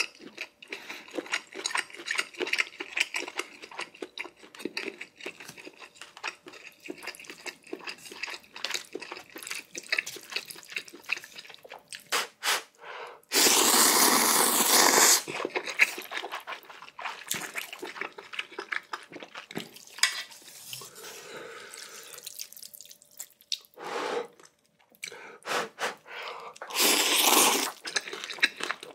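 Close-miked eating of crab and shrimp ramen: wet smacking and sucking with many small clicks, and twice a loud slurp of noodles or broth lasting about two seconds, once about midway and once near the end.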